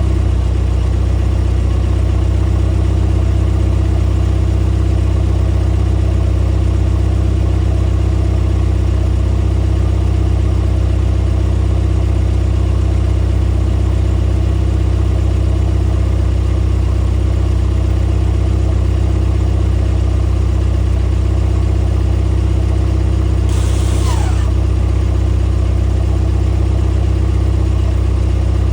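BMW G20 3 Series running with a steady, loud low drone. About 24 seconds in, a brief hiss with a short falling tone.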